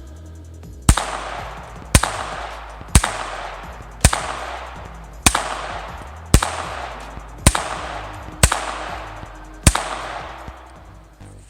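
Nine handgun shots fired one after another, about one a second, each followed by a short trailing echo.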